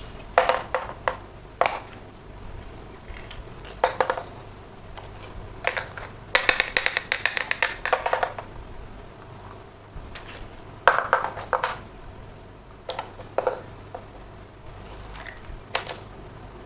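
Small plastic toy kitchen pieces clicking and clacking as they are handled and set down: scattered sharp taps, with a quick run of clicks lasting about two seconds near the middle.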